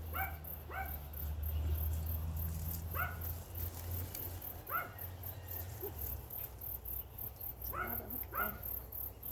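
A dog barking: six short single barks, two of them coming in quick pairs.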